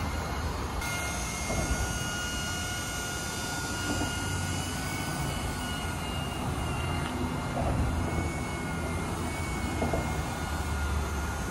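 Eachine E130 electric RC helicopter in flight: a steady high whine from its motor and rotors, the pitch wavering slightly now and then, over a low rumble.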